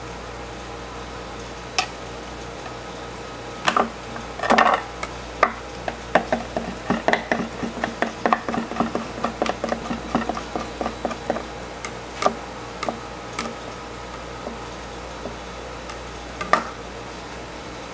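Butcher's knife tapping and clicking against a cutting board while beef rib meat is cut into a net pattern. The taps quicken into a run of about three a second through the middle, then thin out to single knocks, over a steady background hum.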